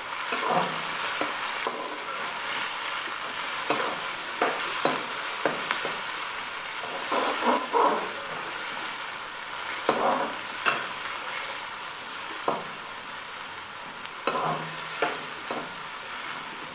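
Chopped onions and tomatoes sizzling in hot oil in a metal kadhai as they cook down to soften. A metal spatula stirs them, scraping and knocking against the pan at irregular moments.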